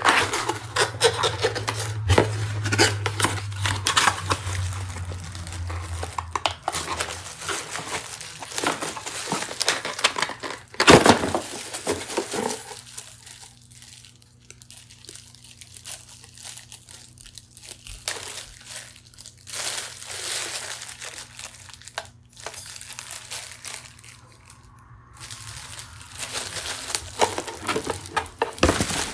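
Alarm clock's box and packaging being opened and handled: crinkling and rustling with scattered clicks and taps, quieter through a long middle stretch.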